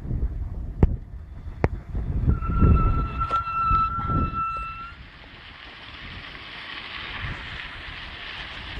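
Bicycle ridden over a rough trail: sharp knocks and a low rumble from bumps, with a steady high squeal lasting about two and a half seconds near the middle. From about five seconds in, a hiss of wind on the microphone rises steadily.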